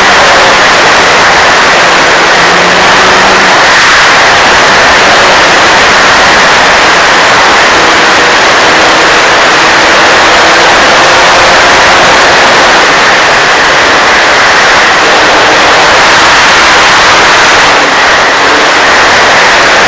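Radio-controlled P-51 Mustang model plane's motor heard faintly, its tone drifting slowly up and down, under a loud steady hiss.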